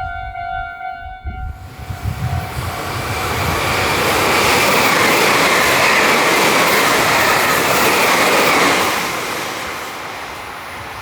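Japanese train passing close by: a rushing rumble of wheels and cars that builds over a couple of seconds, stays loud for about five seconds, then fades away.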